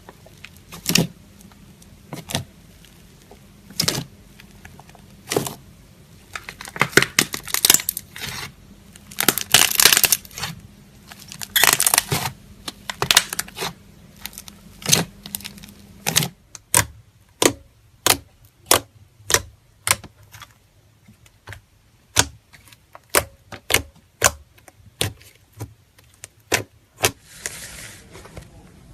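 A run of sharp clicks and taps. They come irregularly and in clusters at first, then settle into a steady two or so a second in the second half. A faint hiss follows near the end.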